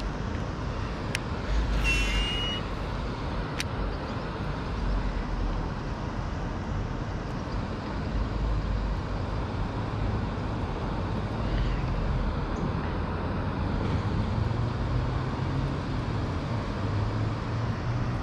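Steady low outdoor rumble with a hiss above it, uneven in level, with a short high tone about two seconds in.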